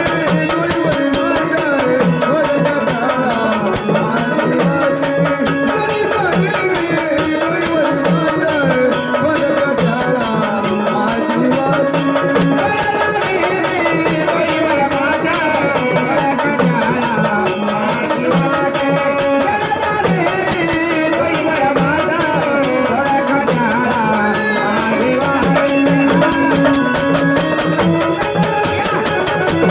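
Marathi gondhal folk music: fast, steady hand-drum percussion under a wavering melody line.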